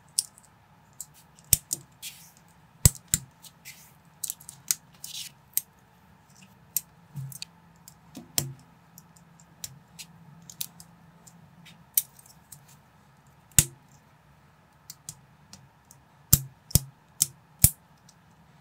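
LEGO-compatible plastic bricks clicking and snapping together as they are pressed on and handled by hand: sharp, irregular clicks with a few short rustles between.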